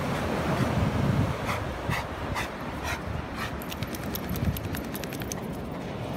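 Rottweiler panting, breaths about two a second, over low wind rumble on the microphone. A faint high rattle of ticks comes in about the middle.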